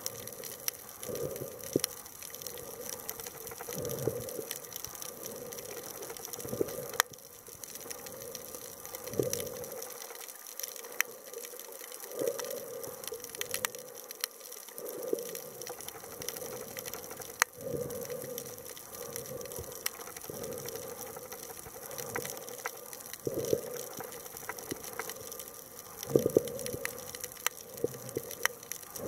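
Underwater water noise picked up by a submerged camera: a muffled rushing that swells and fades every second or two, with scattered sharp clicks.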